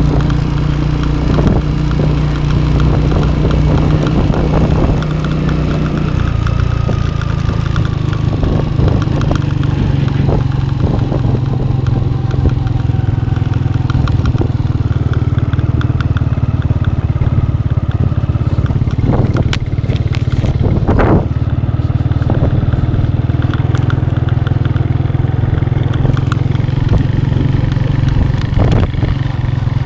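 Motorcycle engine running steadily while the bike is ridden at low speed, heard from on the bike; its note shifts about six seconds in. A couple of brief knocks come about two-thirds of the way through.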